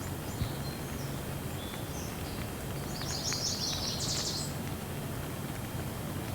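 Steady rain hiss with birds chirping over it; a quick run of high chirps comes about three seconds in and lasts a second and a half.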